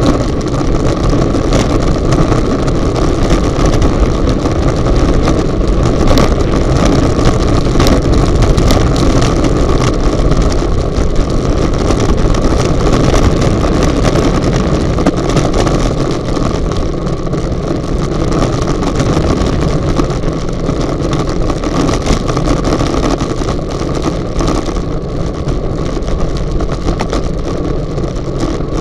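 Wind rushing over the microphone of a Contour+ action camera carried by a road cyclist at about 40 to 47 km/h, with road rumble and frequent small knocks from the camera, easing a little in the second half.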